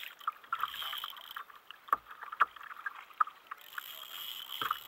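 Small waves lapping against a plastic kayak hull, with irregular splashes and light knocks.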